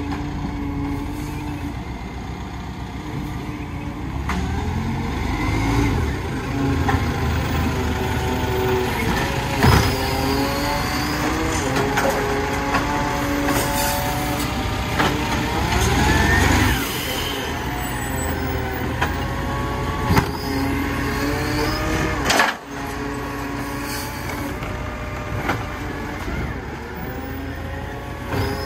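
Side-loading garbage truck running with its hydraulic lifting arm whining as it grabs, lifts and tips a wheelie bin, with a rising whine partway through and a few sharp knocks of the bin and arm.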